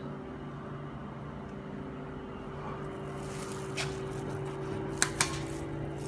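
Industrial microwave batch oven running with a steady electrical hum, a hiss building from about halfway. Two sharp clicks close together about five seconds in.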